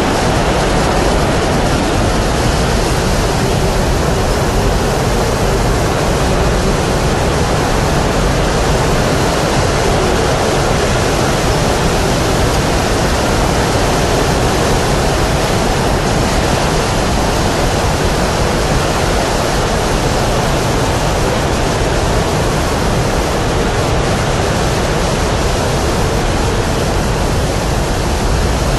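A steady, loud rush of blowing air: an even hiss with no change in level throughout.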